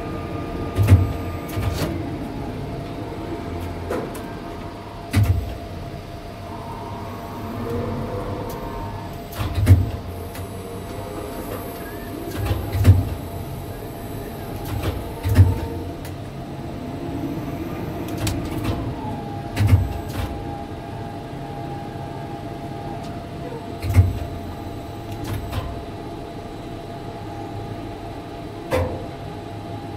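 Tower crane running, heard from inside its cab as it slews: a steady hum with a held whine, slow rises and falls in pitch, and a sharp knock or clunk every few seconds.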